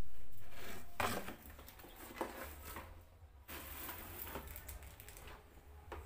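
Light knocks and rattles of a plastic storage basket and the bottles in it being handled and set down, over a low background rumble.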